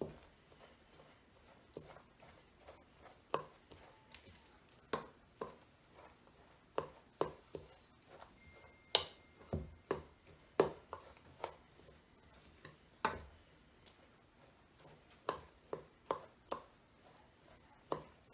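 A spoon stirring and mashing a crumbly oatmeal and butter mixture in a stainless steel mixing bowl, knocking and scraping against the bowl in irregular clicks, about one or two a second. The loudest knock comes about nine seconds in.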